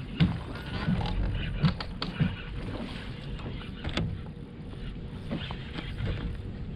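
Small waves lapping against a bass boat's hull, with uneven low knocks and thumps every half second to a second.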